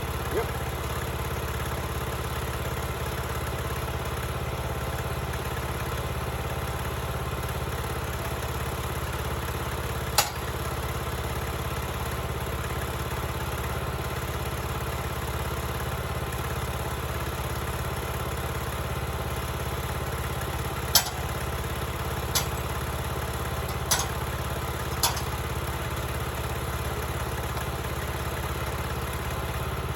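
Portable sawmill's engine running steadily, with a few sharp knocks: one about ten seconds in and four more spread over the last third.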